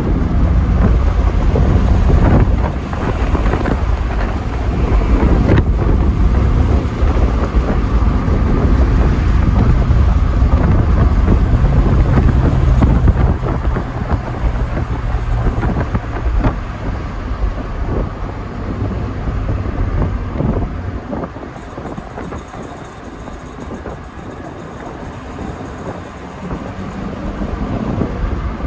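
Mazda MX-5's four-cylinder engine running while the roadster is driven with the top down, heard from the open cockpit with wind buffeting the microphone and tyre and road noise. The engine note holds steady for a while, then the sound eases off in the latter part before building again near the end.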